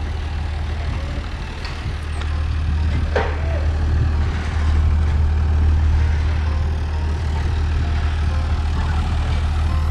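Heavy engine running steadily with a deep, even hum, from the machinery hauling a large yacht out at a boatyard. A brief squeak rises and falls about three seconds in.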